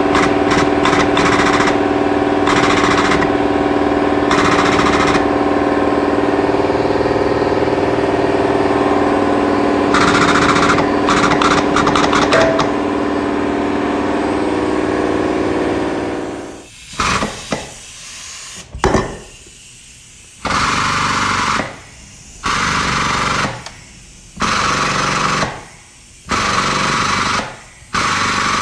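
Shop power tools at work: a steady machine hum with stretches of fast rattling like an air impact wrench, then a run of about seven separate bursts, each roughly a second long.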